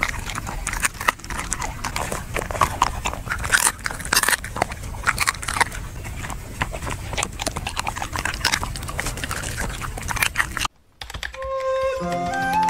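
A dog chewing and crunching fish close to the microphone: a dense, irregular run of crunches and wet bites. About ten and a half seconds in it cuts off, and after a brief silence a melody of single notes begins.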